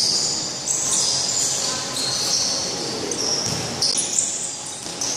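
Basketball sneakers squeaking again and again on a wooden court during play, in short high-pitched chirps.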